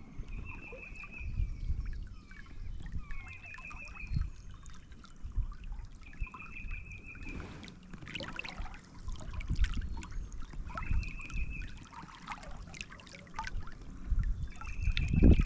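Creek water trickling, with scattered low knocks and rustles, while a bird repeats a short high trill five times, about every three seconds.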